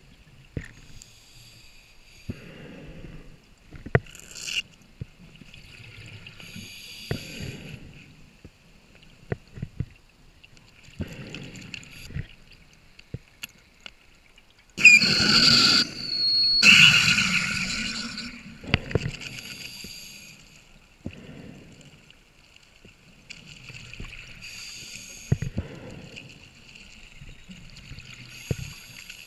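Scuba regulator breathing underwater: a soft hiss on each inhalation and a bubbling rush on each exhalation, every few seconds. About halfway through, two loud rushes of air as a red delayed surface marker buoy is inflated, with a brief whistle between them.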